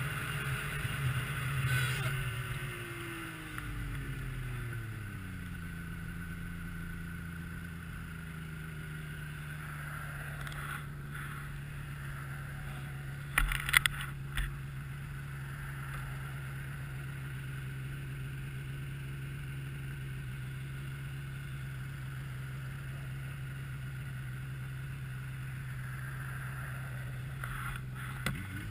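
A 2002 Yamaha SX Viper 700 snowmobile's three-cylinder two-stroke engine winds down as the sled slows, then idles steadily for about twenty seconds, with a few knocks about halfway through. Near the end it revs up again as the sled pulls away.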